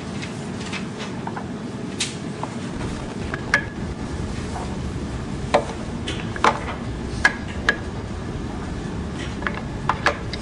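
Yellow wooden knobless cylinders being packed away into their box: about eight short, sharp wooden knocks at irregular intervals as each one is set in, over a steady hiss.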